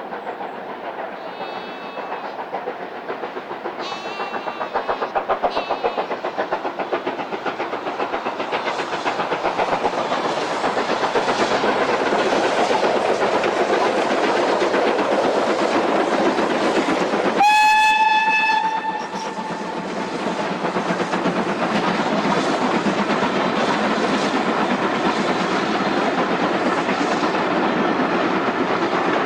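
Steam locomotive working hard, its exhaust beats coming fast and growing louder over the first ten seconds or so. About two-thirds of the way through it gives one whistle blast of about a second and a half, which cuts off sharply.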